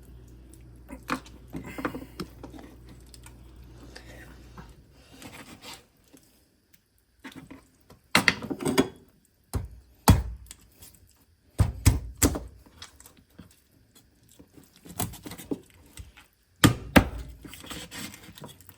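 Knife chopping through raw chicken on a cutting board: a series of irregular heavy thunks, with a low steady hum in the first few seconds that then stops.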